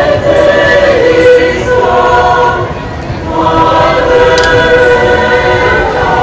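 Choir singing a Christmas song in English through a sound system, several voices holding long chords, with a brief dip in loudness about three seconds in.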